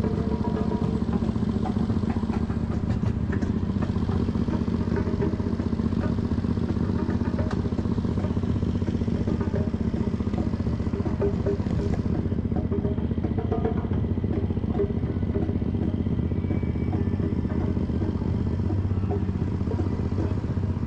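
Steady wind and road rumble from riding a bicycle, with light rattles and clicks from the bike throughout. The higher hiss thins out a little over halfway through.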